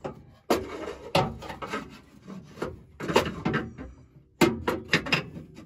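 Ratchet wrench on a long extension working a bolt under a truck: a series of irregular sharp clicks and metallic knocks.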